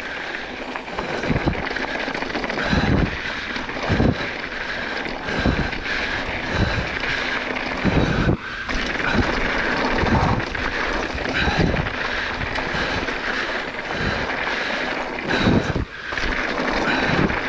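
Mountain bike rolling fast down a rocky dirt singletrack: tyres crunching over dirt and loose stones, with frequent knocks and rattles as the bike hits rocks, over steady wind noise on the microphone.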